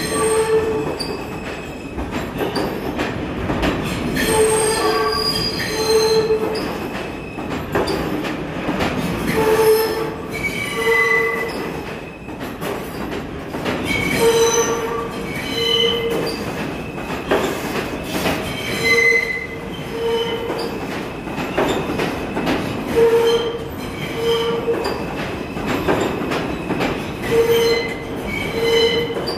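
R160-series New York subway train rolling slowly past, its steel wheels squealing over a steady rail rumble. The squeals come in short pairs, one pair about every four to five seconds, as each car goes by.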